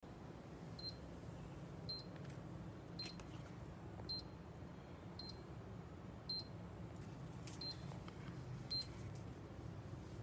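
A short high beep repeating about once a second, eight times in all, over a steady low hum.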